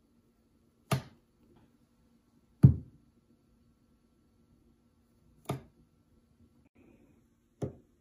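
Four sharp knocks on a hard surface, a second or two apart, over a faint steady low hum.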